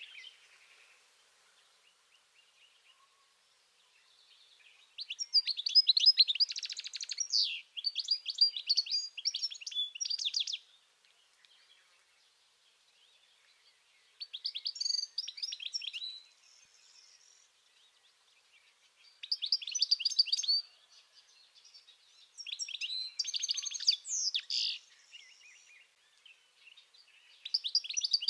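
European goldfinch singing: about five phrases of rapid, high twittering, each a few seconds long, separated by short pauses. The first phrase starts about five seconds in.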